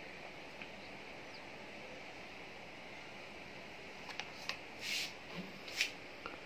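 Quiet room tone with a steady hiss. Near the end come a few small clicks and two short breathy bursts.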